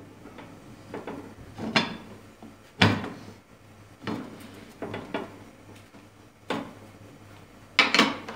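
Aluminium pressure cooker being closed: about six sharp metallic knocks and clicks as the lid and handles are seated. Near the end the pressure weight is set on the steam vent.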